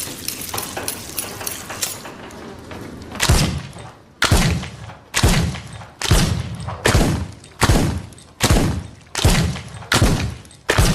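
"Escarlata" M556 pistol sound effect firing single shots, about ten, a little under one a second, each with a short decaying tail. Before the shots begin, about three seconds in, there is a patter of rapid small clicks.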